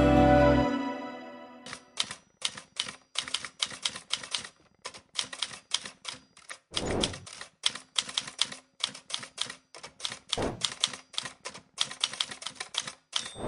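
Manual typewriter keys striking in quick irregular runs, with two heavier thumps among the keystrokes and a brief ring near the end. Background music fades out in the first second or so.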